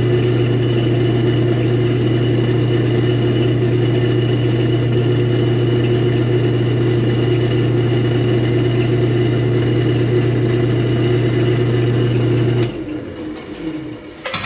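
Jet wood lathe running at speed with a handmade round carbide cutter shaving a resin-and-burl pen blank: a steady motor hum with a rough cutting noise over it. About thirteen seconds in the lathe is switched off and its pitch falls as it winds down.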